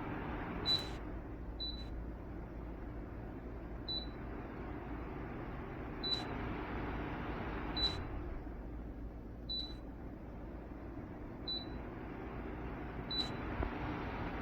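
Dreo tower fan running with a steady rush of air, its control panel giving eight short high beeps, some with a click, spaced about one to two seconds apart as its buttons are pressed.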